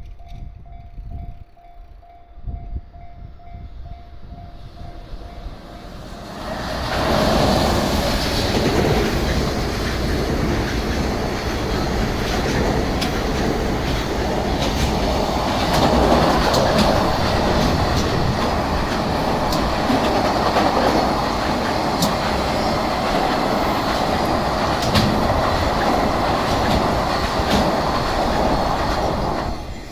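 Level-crossing warning bell ringing in a steady, rapid pattern. About six seconds in, a long train comes through the crossing and drowns it out: a continuous rumble with the clickety-clack of wheels over rail joints. The train takes over twenty seconds to pass and its sound stops suddenly near the end, which fits a long freight train, such as one hauled by an EF210 electric locomotive.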